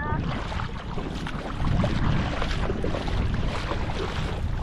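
Shallow water sloshing and lapping right at a camera held at the water's surface, with wind buffeting the microphone.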